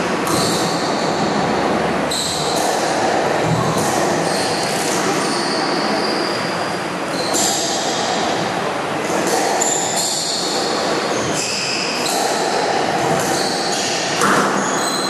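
Squash rally on a glass-walled court: repeated sharp knocks of the ball off rackets and walls, and short high squeaks of shoes on the wooden floor, over steady background noise of the hall. The loudest knock comes near the end.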